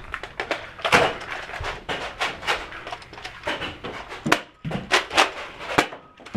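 An irregular run of sharp knocks and clicks, several a second, with a couple of brief lulls near the end.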